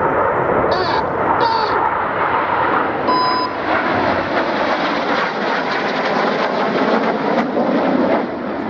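BAE Hawk T1 jets of the Red Arrows flying past in display, a loud, steady rush of jet engine noise. A brief high tone is heard about three seconds in.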